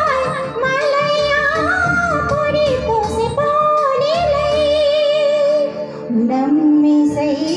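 A woman singing a Hindi patriotic song live into a handheld microphone, holding long notes that bend and waver in pitch.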